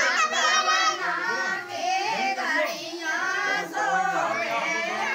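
Several high voices, women's by the look of the gathering, singing a folk wedding song together, the melody wavering up and down.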